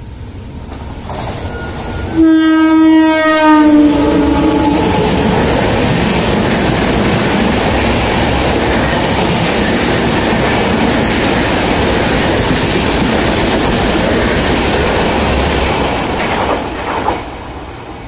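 Indian Railways double-decker express passing through the station at speed. The locomotive's horn sounds for about two and a half seconds, its pitch dropping slightly at the end. Then comes a long steady rush of wheels and coaches with clickety-clack, which fades near the end.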